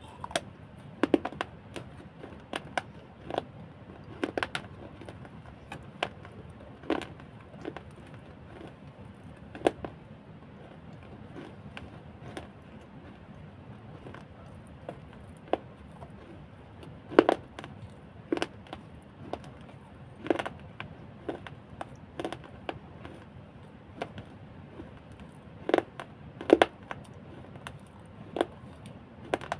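A person eating idli close to the microphone: wet mouth smacks and chewing clicks at irregular intervals, sometimes two in quick succession.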